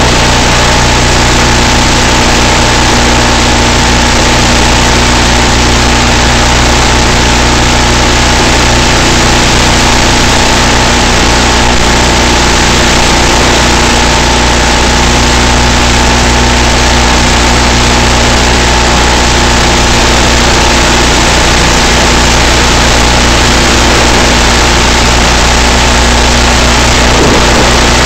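Loud, unchanging hiss with a steady low hum and a faint fixed tone under it, with no change in pitch or level.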